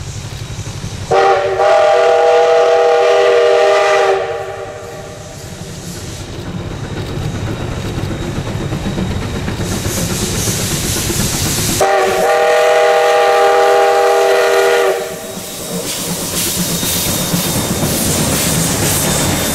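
CK124 steam locomotive blowing two long steam-whistle blasts, each a single chord held about three seconds, roughly eight seconds apart. Between and after them there is a rising hiss of steam as the engine pulls away, with steam blowing from its cylinders.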